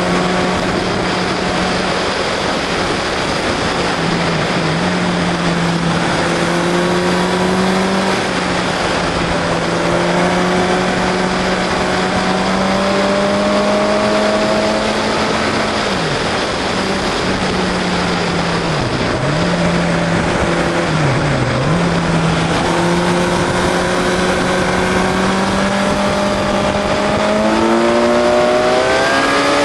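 Onboard sound of a vehicle driving at speed: its engine runs at a mostly steady pitch under heavy wind noise. The pitch dips briefly three times around the middle, as the throttle is lifted or gears change, and rises in a rev near the end.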